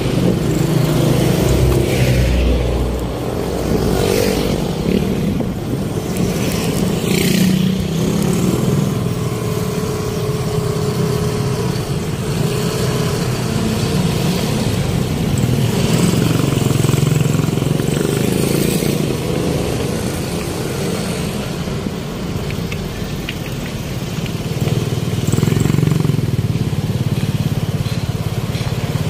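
City road traffic: vehicle engines running steadily, with motorcycles and cars passing close by several times in the first few seconds.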